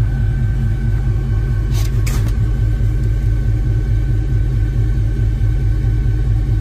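Four car-audio subwoofers driven by Taramps Smart 8K amplifiers, wired to 2 ohms, playing a 20 Hz test tone at full power for a clamp reading: a loud, evenly pulsing low rumble. A faint steady high tone runs alongside, and two brief clicks come about two seconds in.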